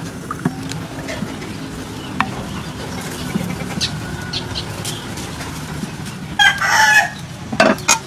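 A chicken calls loudly twice: a longer call about six and a half seconds in and a short one a second later. Under it, a wooden spoon scrapes faintly as it stirs a thick paste in a bowl.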